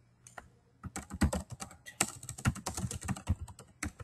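Typing on a computer keyboard: a couple of single key clicks, then a quick run of keystrokes for about three seconds that stops right at the end.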